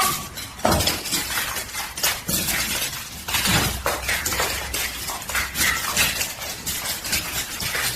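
A long run of clattering and crashing, many sharp knocks and clinks one after another, like hard objects being knocked about or breaking.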